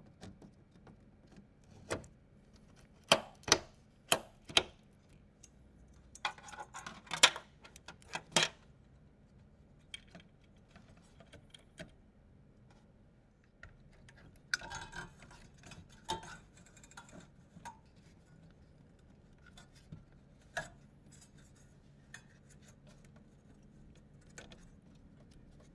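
Scattered clicks, taps and light metallic knocks of PC hardware being handled and fitted together. There is a run of four sharp clicks about three to four and a half seconds in, and a rustling, scraping stretch around the middle.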